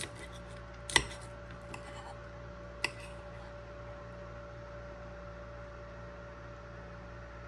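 Three short, sharp knocks or clinks: one at the start, a louder one about a second in and a third near three seconds. A steady low hum with a faint thin whine runs underneath.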